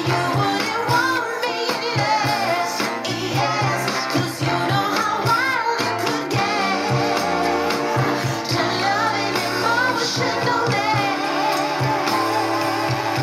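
A pop song with vocals played through a small 200 mW class-B push-pull transistor amplifier (BC337/BC327 output pair) into a bookshelf speaker. It is slightly short on bass, which the builder puts down to the small 220 µF output coupling capacitor.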